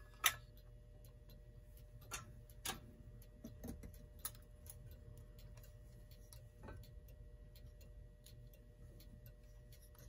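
Scattered light clicks and taps of small clock parts and tools being handled on a workbench, irregularly spaced, the sharpest just after the start, over a faint steady hum.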